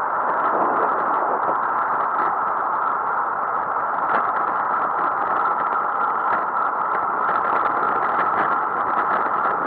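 Steady rushing noise of wind and road picked up by a camera on a moving bicycle, unchanging throughout.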